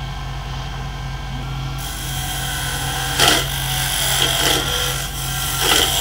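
Wen 3421 variable-speed benchtop wood lathe's motor running steadily, spinning a wooden blank while a turning chisel is pressed against it. The chisel scrapes and kicks on the blank, which is still out of round, loudest twice: about three seconds in and near the end.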